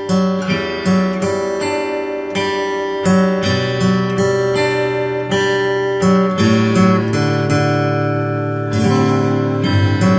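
A single acoustic guitar plays a song arrangement, plucking a melody over ringing bass notes.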